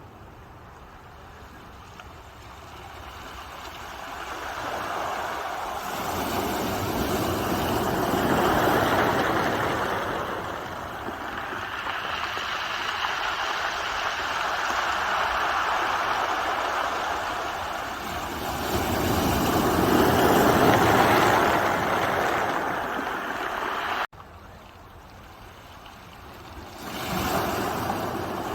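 Ocean waves surging in and washing back, in long swells of surf that rise and fade. The sound drops off abruptly about two-thirds of the way through, at an edit, and another wave builds near the end.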